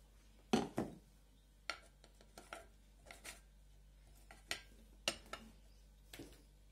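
Scattered light knocks and clicks of dishes being handled: a plastic bowl set down on the table and fingers working shredded chicken into a metal salad ring on a plate. The two strongest knocks come about half a second in, with a few more near the end.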